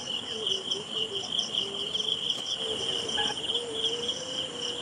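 Crickets chirping in a steady, high-pitched pulsing trill, with a fainter wavering lower tone underneath and a brief short call about three seconds in.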